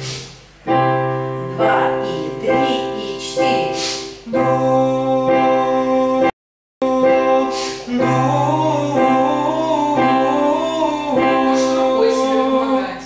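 Piano chords accompanying a singing exercise, struck about once a second, with a voice singing the exercise over them; the sound breaks off for a split second about halfway.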